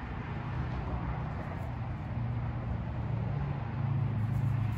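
An engine or motor running steadily, its low hum growing a little stronger about three seconds in.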